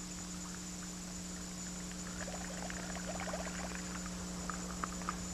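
Buzzbait retrieved across the water surface: its spinning blade gives a faint, rapid churning and squeaking for about a second and a half, with a few light ticks near the end, over a steady low hum.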